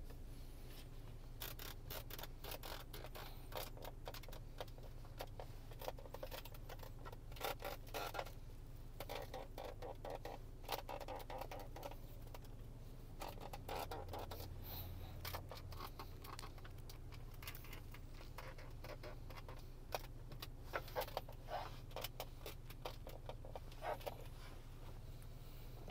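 Plastic interior trim of a Jetour Dashing creaking and clicking again and again as it is pressed: the dashboard speaker grille and the piano-black centre console. A low road rumble runs underneath in the moving car's cabin. The noisy trim points to poor build quality.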